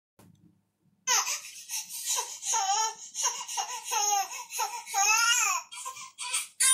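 A baby's voice fussing in a string of short, wavering whimpers and cries, breaking into steady crying right at the end.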